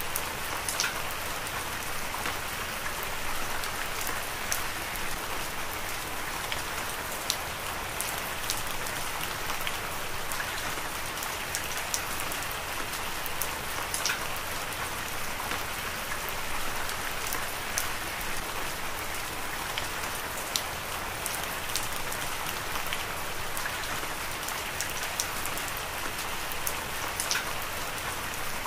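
Heavy rain falling steadily, a dense even hiss with many sharp drop impacts ticking through it.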